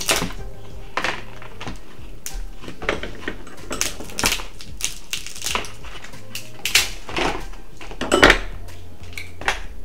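Dungeness crab shell cracking and snapping as the legs are broken open, in irregular sharp cracks about one or two a second, the loudest about eight seconds in.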